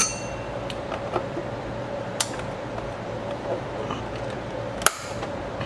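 A few sharp clicks and taps as screws are taken out of a Reflecta 1002 slide projector's plastic housing with a screwdriver, the loudest near the end, over a steady faint hum.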